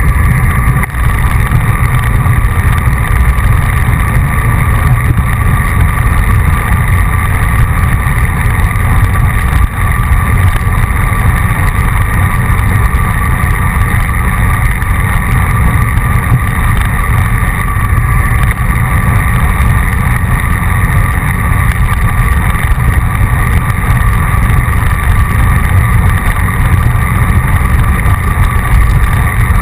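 Steady wind rush and low road rumble on a bike-mounted action camera riding at speed.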